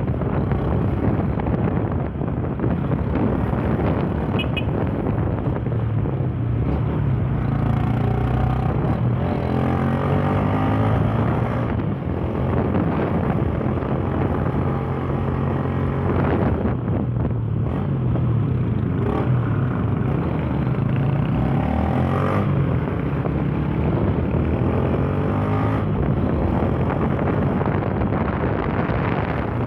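Yamaha Fazer 150's single-cylinder engine running while the motorcycle is ridden, its pitch rising and falling several times as the bike speeds up and slows. Wind rushes over the microphone throughout.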